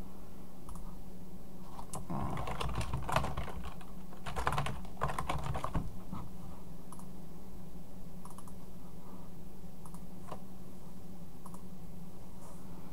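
Typing on a computer keyboard, in quick runs of keystrokes about two to six seconds in, then a few single clicks, over a steady low hum.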